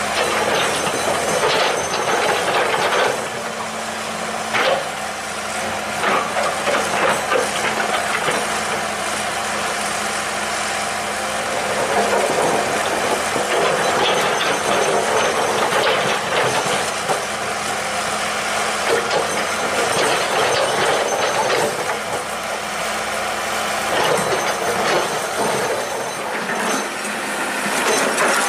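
Excavator at work: its diesel engine runs steadily under frequent metallic clanks and rattles.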